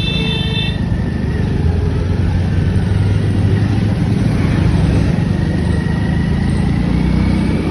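Steady low drone of a motorcycle engine with road and wind noise, heard from the rider's seat while riding slowly in traffic. A brief high-pitched beep sounds at the very start.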